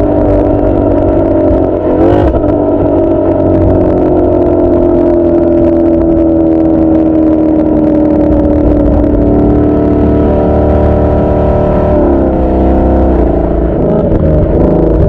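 2018 Mustang GT's 5.0-litre V8 running through a Corsa Sport cat-back exhaust with double-helix X-pipe while driving. The exhaust note falls slowly in pitch, with brief breaks in it about two seconds in and again near twelve seconds.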